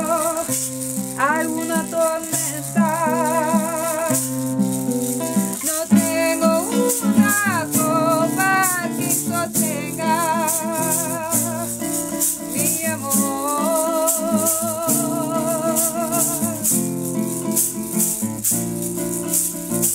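A woman's singing voice with a wide vibrato, accompanied by a plucked acoustic guitar and maracas shaken in a steady rhythm.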